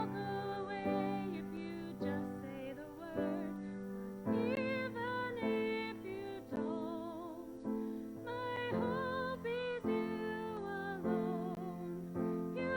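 A woman singing a slow sacred solo with vibrato on long held notes, over piano accompaniment.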